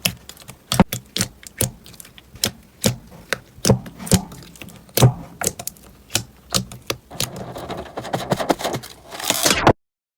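Slime being pressed and worked, giving a run of sharp, irregular clicks and crackles that thicken into denser crackling near the end, then stop abruptly.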